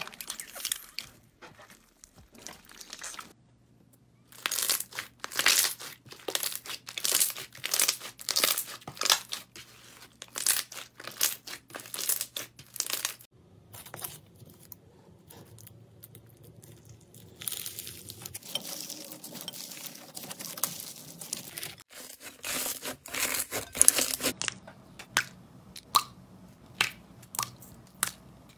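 Slime with jelly cubes and beads being pressed, squeezed and pulled apart by hand, making a run of crunchy, crackling pops that change from clip to clip.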